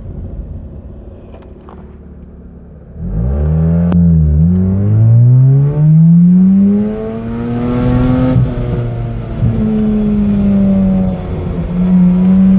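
Mazda RX-8's two-rotor rotary engine running low and quiet at a stop, then revving up hard as the car pulls away about three seconds in. The pitch climbs with a brief stumble soon after, drops sharply about halfway through, and there are short cut-outs and dips later on. This is the random misfire and fuel cut under throttle that the owner thinks is an ignition problem but could be fuel.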